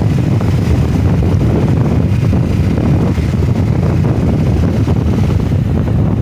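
Steady wind buffeting on the microphone of a moving motorcycle, a dense low rumble with the bike's engine running underneath.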